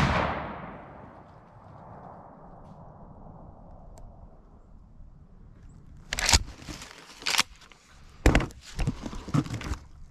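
The tail of a 12-gauge Mossberg Maverick 88 slug gun's shot, fading over about two seconds. From about six seconds in, footsteps crunching through dry fallen leaves.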